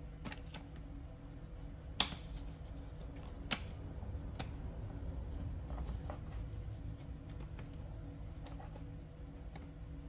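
Light clicks and taps of door latch parts being worked by hand inside a 2018 Jeep Wrangler's rear door, with two sharper clicks about two and three and a half seconds in, over a steady low hum.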